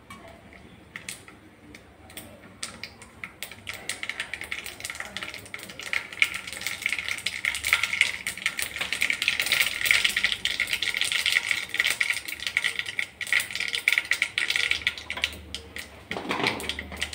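Seeds crackling and popping in hot sesame oil in a wok as a tempering fries. Scattered pops at first build to a dense, fast crackle a few seconds in, which thins out again near the end.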